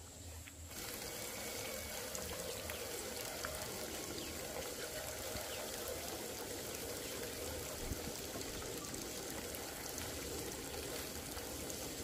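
Steady trickle of running water, with a few faint clicks.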